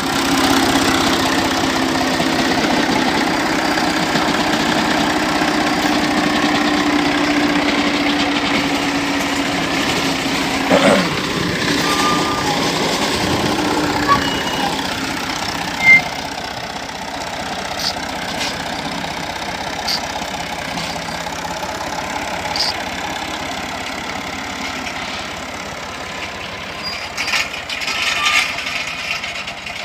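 Engine of a hay-mowing machine running steadily, with a steady hum that fades gradually over the first dozen seconds as the machine works away, and a few short clicks and knocks later on.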